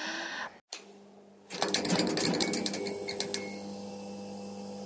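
A steady low mechanical hum starts about a second and a half in, with a scatter of clicks and a brief thin high tone in the next couple of seconds.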